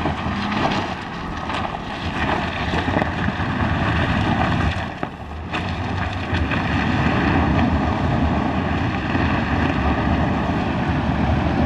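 Land Rover Defender's engine running under load as the 4x4 crawls up a steep rutted dirt climb, with tyre and gravel noise.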